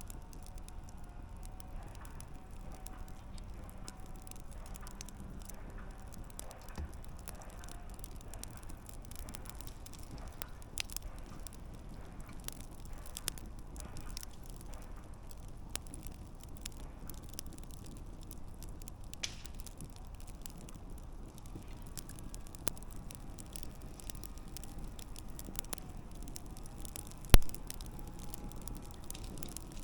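Wood campfire burning, with irregular crackles and small pops over a low steady hiss of the flames. One much louder, sharp pop comes near the end.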